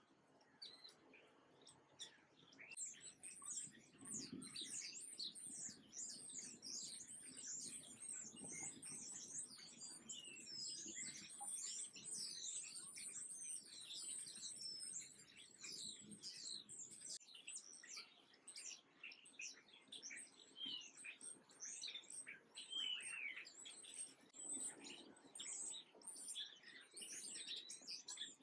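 A flock of small songbirds, such as sparrows and finches, chirping all at once in a dense, continuous chatter of short, high chirps that sets in about two seconds in.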